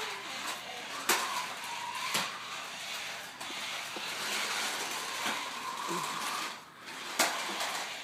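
Battery-powered toy remote-control cars whirring across a tile floor, with a faint electric-motor whine. Sharp knocks come about one second and two seconds in, and again near the end.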